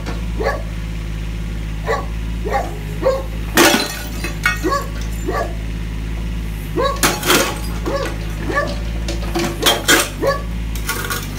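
Mini excavator engine running steadily as the bucket presses down on a ceramic toilet bowl, which cracks and shatters with a sharp crash about three and a half seconds in; more cracking crunches follow around seven and ten seconds in as the bucket presses the broken pieces. A dog barks repeatedly throughout.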